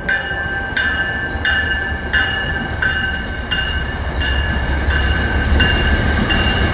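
Bell of an approaching MBTA commuter train ringing steadily, about three strikes every two seconds. Beneath it is the low rumble of the train, which grows louder in the second half as the bilevel cab car rolls in.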